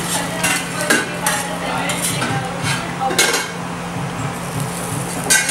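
Metal spatula blade knocking and scraping on a steel flat-top griddle, several sharp clinks spread through, over a steady low hum.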